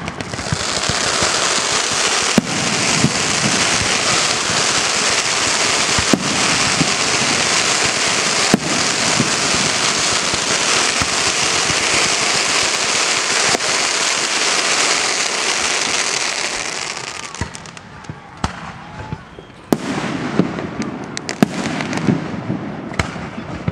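Fireworks display: a dense, continuous barrage of rapid crackling shots with a few sharper bangs. About three quarters of the way in it dies away, leaving scattered single bangs.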